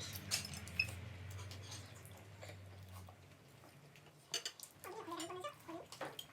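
Eating at a meal: scattered light clinks of cutlery on dishes and chewing, under a low hum that stops about halfway through.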